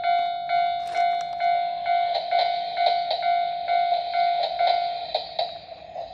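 Toy Japanese railroad-crossing alarm sounding its electronic 'kan-kan' crossing bell, a ringing tone pulsing a little over twice a second. Near the end the ringing fades and the pulses turn into sharper ticks.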